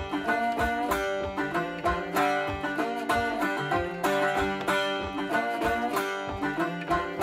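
Background music: an upbeat banjo-led plucked-string tune with a steady beat.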